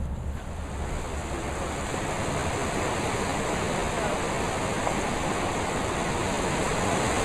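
Steady rush of sea water with some wind, building over the first couple of seconds and then holding.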